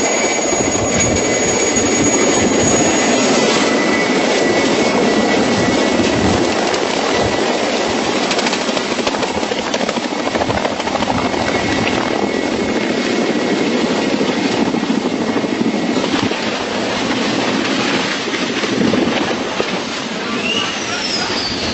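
A helicopter flying close overhead at low height, its turbine engines and rotor running hard. A steady high turbine whine sits over the heavy rushing noise of the rotor.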